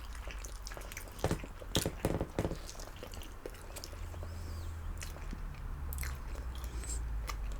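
Close-up eating sounds of fried chicken strips and fries being bitten and chewed. There are a few sharp bites between about one and two and a half seconds in, then quieter chewing with occasional small clicks.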